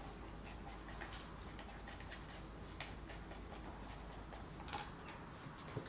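Faint scraping and light ticking of a wooden stirring stick against the inside of a plastic cup, stirring chopped glass fibre into polyester resin.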